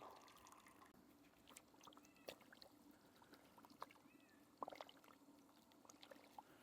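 Near silence: a faint steady hum with a few soft scattered clicks.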